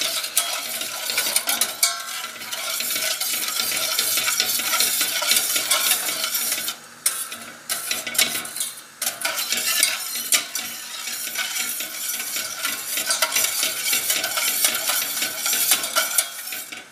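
Metal wire whisk stirring continuously through a thin liquid custard base in a stainless steel saucepan, a rapid scratching and swishing of wires against the pan, with brief pauses about seven and nine seconds in. The base is kept moving nonstop as it heats to thicken.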